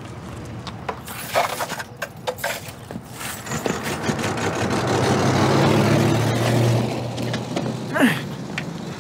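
A wood-panelled station wagon drives along the street. Its engine and tyres build to a peak about six seconds in and then fade as it moves away. A few sharp clicks come in the first three seconds, and a brief falling voice sounds near the end.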